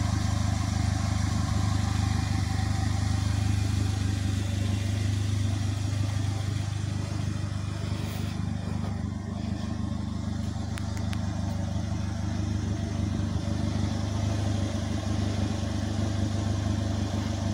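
Polaris Slingshot's engine idling steadily, a low even hum.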